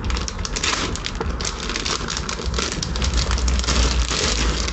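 Crackly rustling and crinkling with many small sharp clicks, from a new motorcycle chain and its packaging being handled, over a low steady rumble.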